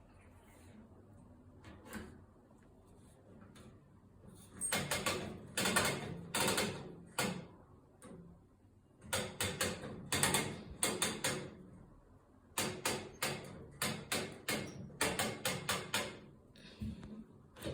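Washing machine drum turning, with something inside knocking and clattering in quick runs. The knocks come in three bursts of a few seconds each, with pauses between them, after a quiet first few seconds.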